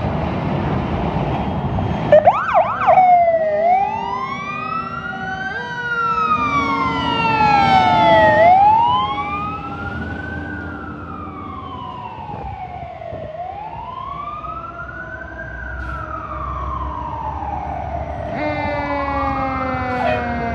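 Fire truck siren: a quick burst of fast yelping about two seconds in, then a slow wail rising and falling about every five seconds over the diesel truck's engine rumble. The siren grows quieter after about ten seconds as the truck moves away, and a second siren starts near the end.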